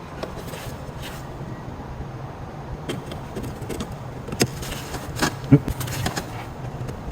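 Small clicks and knocks of an LED headlight bulb and its plastic and metal parts being handled and fitted into a pickup truck's headlight housing, the sharpest knock about five and a half seconds in, over a steady low hum.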